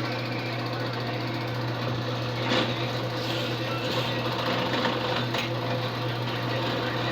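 A small electric motor running steadily, with a few sharp clicks.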